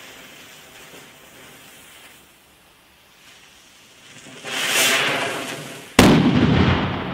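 PS5 Shark firecracker (a 7 g Polenböller): its lit fuse sputters faintly, then flares into a loud hiss about four seconds in. About six seconds in, the firecracker goes off in a single sharp, very loud bang that dies away over a second or so. It is measured at 120.4 dB at 8 metres.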